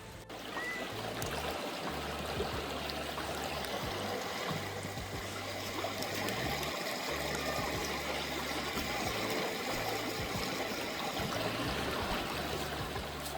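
Running water, a steady trickling stream.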